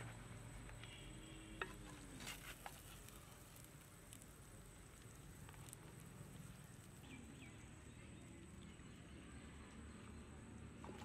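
Near-quiet outdoor ambience with a faint steady high-pitched whine. A metal spoon clicks against a clay pot, sharpest about a second and a half in, with a few lighter clicks after. Faint short chirps come near the start and again after about seven seconds.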